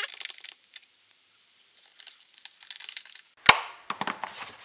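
Nut driver turning a 5/16 nut down on a stud in a mower's plastic battery housing, giving a run of faint light clicks and scrapes. About three and a half seconds in there is a single sharp crack, followed by a few softer knocks on the plastic.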